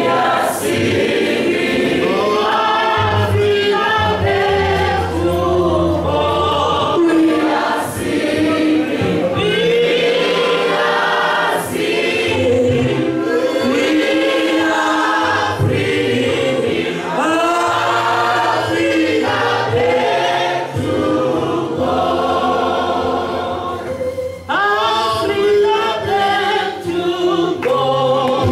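A congregation singing a gospel hymn together in chorus, with a man's voice on a microphone leading.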